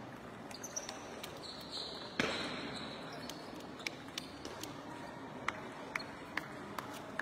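Table tennis ball bouncing, a run of sharp clicks about two a second in the second half, with a louder knock about two seconds in.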